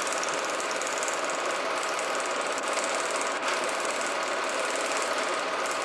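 Steady, fast mechanical clatter with hiss from a 1987 Super 8 film as it plays, even in level and without any tune or voice.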